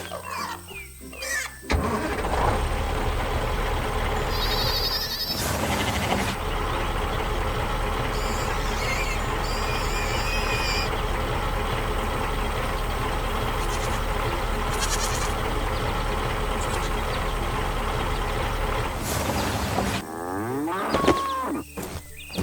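Heavy farm machine engine running steadily, starting about two seconds in and cutting off near the end. Short animal calls come just before it starts and just after it stops.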